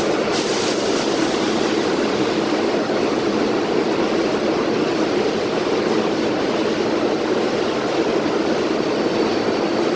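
Steady, loud hum and rush of air from a standing R188 subway train's air-conditioning and onboard equipment, with the doors open, echoing in the underground station. A short hiss comes just after the start.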